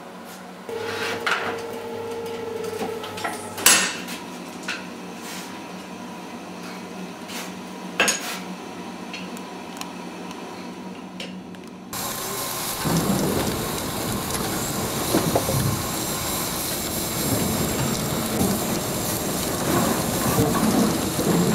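Metalworking shop sounds: a few sharp metallic clanks and knocks over a faint hum, then about halfway through a sudden switch to a louder, denser clatter.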